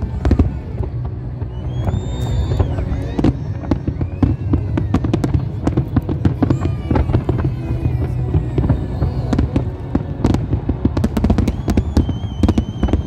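Aerial fireworks shells bursting in quick succession, a dense run of bangs and crackles over a low rumble. A high whistle sounds about two seconds in and another near the end.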